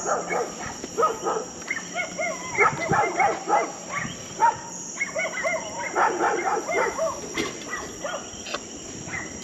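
Dogs barking again and again, several at different pitches overlapping, over a steady high-pitched insect chorus.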